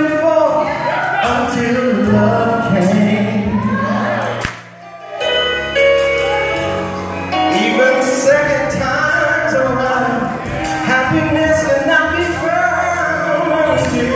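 Live gospel music: a man singing into a microphone over keyboard accompaniment with sustained, stepping bass notes. The music drops away briefly about four and a half seconds in, then picks up again.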